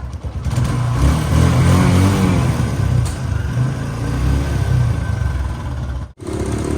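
Motorcycle engine running and pulling away, its pitch rising as it revs and accelerates. The sound cuts off abruptly near the end, then engine sound resumes.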